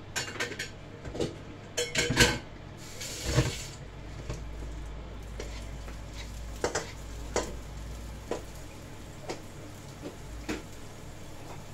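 A spatula knocking and scraping against a nonstick wok as garlic is stirred in hot oil over a gas flame. There is a brief hiss of sizzling about three seconds in, then single taps about once a second.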